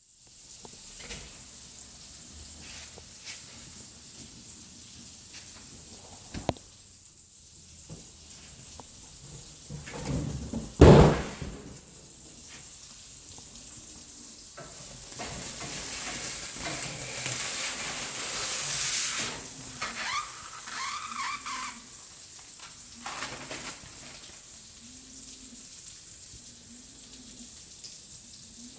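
Food sizzling in a frying pan, a steady hiss throughout, while protective plastic film is peeled and crinkled off a new microwave, loudest for a few seconds around the middle. One loud thump about eleven seconds in.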